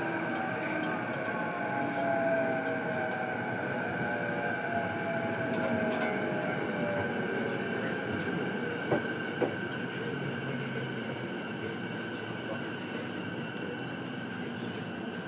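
Running sound heard aboard a JR East E233 series electric train motor car, MoHa E233-7406: steady rumble of wheels on rail under the traction motors' whine, which falls in pitch as the train slows. Two sharp clicks about nine seconds in.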